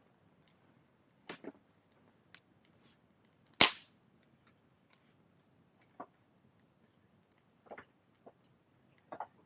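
Wood fire crackling: scattered small pops and snaps at uneven intervals, with one much louder sharp crack a little past a third of the way in.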